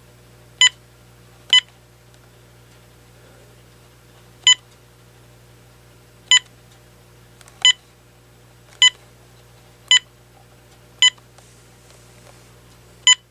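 AT&T 7720 cordless phone key-press beeps: about nine short, sharp single beeps at uneven intervals as buttons are pressed to step through the phone's settings menu.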